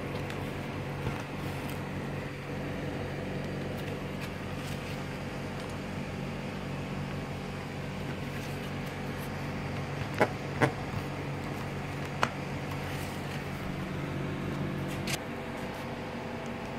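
Steady mechanical hum in the background, with four sharp clicks and knocks: two close together around ten seconds in, one at about twelve and one at about fifteen. The clicks fit handling the welder's sheet-metal casing as a cover is slid off.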